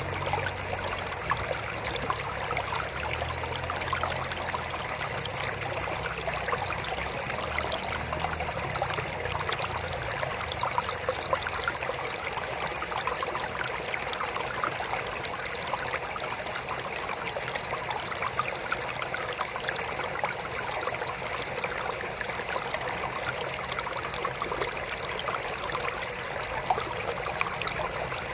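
Water trickling steadily into a mini aquarium, a continuous fine splashing with many small drips. A faint low hum sits underneath for the first dozen seconds, then fades.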